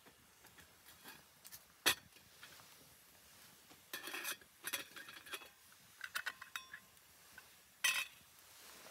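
Metal cooking pot and its lid clinking against the grill and rock as the pot of heated water is lifted off the campfire and uncovered. One sharp clink about two seconds in is the loudest, with bursts of clatter around the middle and again near the end.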